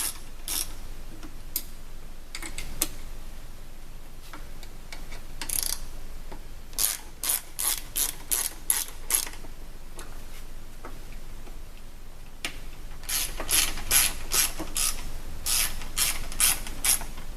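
Hand ratchet with an Allen bit on an extension clicking in quick runs as it turns screws down through the backrest, a few scattered clicks, then a short run in the middle and a longer run in the second half.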